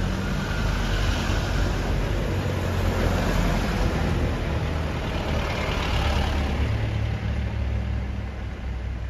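Cars driving past one after another, first a Toyota Innova and then a Mahindra Bolero: a low engine hum with tyre noise that swells twice as the vehicles go by and eases near the end.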